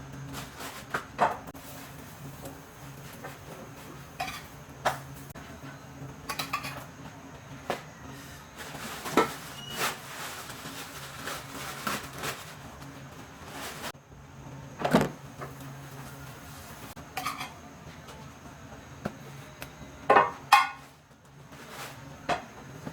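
Kitchen clatter: a pan and utensils knocking and clinking now and then while flatbread is warmed, over a steady low hum.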